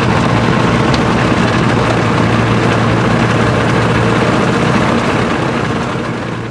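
Rans ultralight's engine and propeller running steadily, heard from inside the cockpit; the drone fades out near the end.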